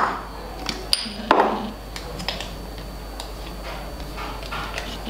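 Kitchen jars and containers knocking and clinking as they are handled on a shelf and counter: a few sharp knocks in the first second and a half, then light scattered taps.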